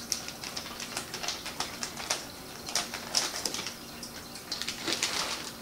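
Plastic zip-top bag of dried pasta crinkling and rustling as it is handled, sealed and lifted: irregular sharp crackles, with a denser run near the end.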